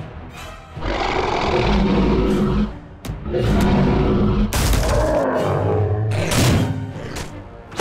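Dinosaur roar sound effects: a long roar starting about a second in, then a second roar that drifts into a lower, wavering growl.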